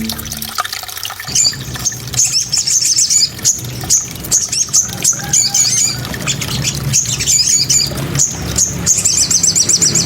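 A small songbird singing a fast, high-pitched song of short trills and chirps, phrase after phrase with brief gaps.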